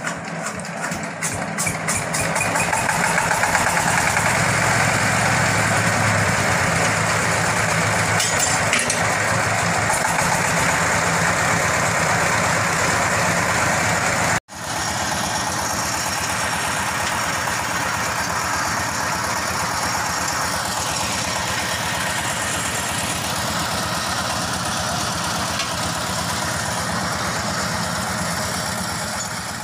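Small stationary diesel engine running steadily, driving a bore-well drilling rig. The sound drops out for an instant about halfway and then carries on.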